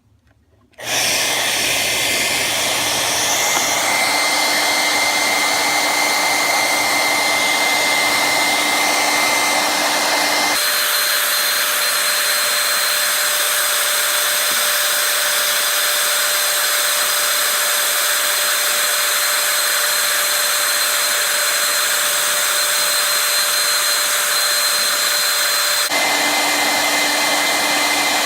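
Handheld hair dryer on its high setting, switched on about a second in and blowing steadily with a whine over the airflow, heating a sunglasses icon to soften its glue. The whine steps up in pitch about a third of the way through and drops back near the end.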